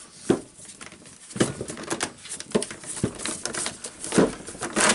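Irregular clicks and knocks as a Hilti TE706 demolition hammer is handled on a wooden workbench, with hands working its side handle; about seven separate knocks and no motor running.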